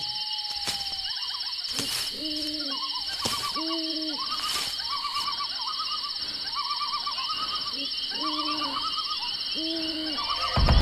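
Owl hooting repeatedly, short calls about once a second, over a steady high chirring of night insects. Loud music comes in right at the end.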